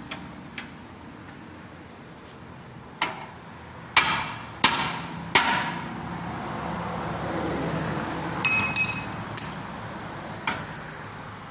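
Hammer blows on steel suspension parts during a ball joint job: four sharp strikes in quick succession a few seconds in, one more near the end, and a ringing metal clink in between.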